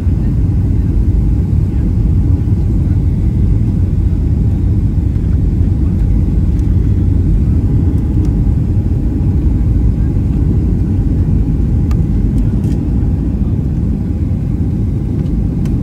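Steady low rumble inside a jet airliner's cabin on final approach with flaps extended: engine and airflow noise heard from a window seat over the wing.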